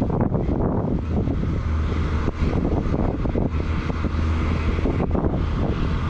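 Steady low engine hum of a Ventrac 4500Z compact tractor working its KX480 snowblower, under gusty wind buffeting the microphone.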